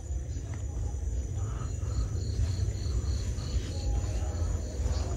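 Insects chirping: a high, rapid pulsed chirp of about five pulses a second through the middle, with a faint steady high trill behind it, over a steady low rumble.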